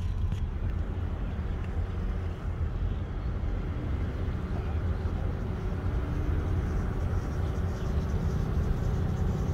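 Steady low rumble of a minivan's engine and tyres, heard from inside the cabin as it moves slowly across a parking lot.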